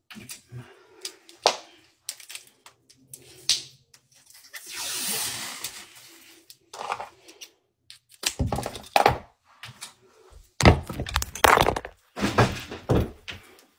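Handling noise close to a phone's microphone: scattered knocks and clicks, a swell of rustling about five seconds in, then a run of loud, heavy thumps in the last few seconds as the phone is moved and set down.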